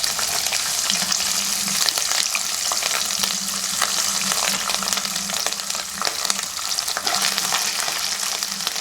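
Coconut pieces frying in hot oil with fenugreek seeds: a steady sizzle full of small crackles, with the scrape and tap of a spoon stirring in the pan.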